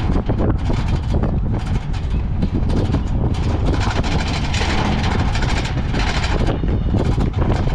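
Wooden race carts rolling fast over pavement: a loud, steady rumble with a dense, continuous rattle from the hard wheels and loose wooden bodies.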